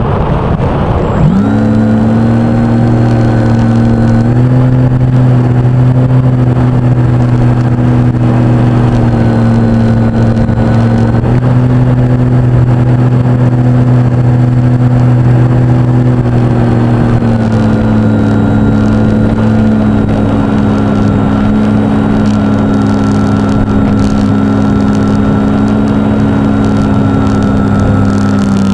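Electric motor and propeller of a radio-controlled model plane starting up abruptly about a second in with a quick rising whine. It then runs at a loud, steady pitch, stepping slightly up or down a few times with throttle changes.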